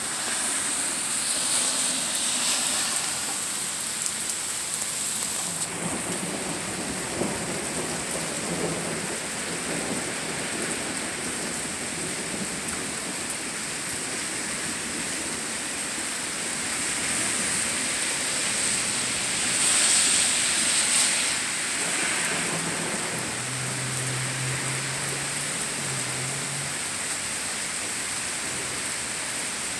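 Steady rain falling, with low thunder rumbling about six seconds in and again past the three-quarter mark.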